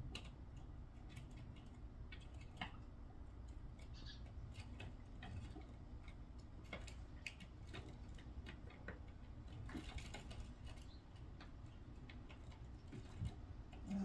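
Sparrows feeding at a window, their beaks pecking in irregular light taps and clicks, with a few faint short chirps.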